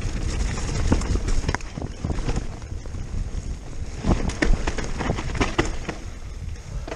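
Giant Stance E+ electric mountain bike ridden fast down a dirt forest trail: wind buffets the microphone over the tyres rolling on dirt, and the bike knocks and rattles over bumps, most around four to six seconds in.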